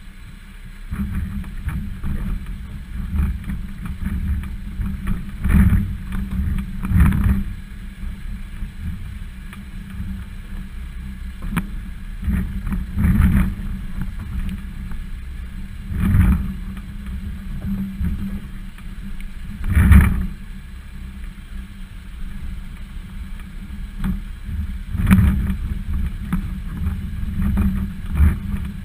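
Volvo XC60 SUV crawling over a loose rocky 4x4 trail, heard from a bumper-mounted camera: a steady low rumble with wind on the microphone, broken by about six loud knocks and jolts as the wheels drop over rocks.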